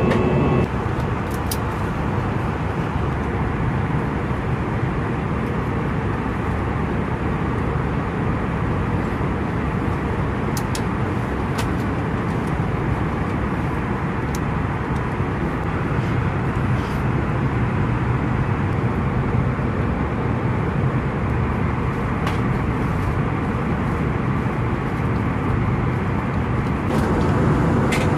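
Steady airliner cabin noise inside an Airbus A320 in flight: an even rushing of airflow and engine sound, strongest in the low range, with a few faint ticks.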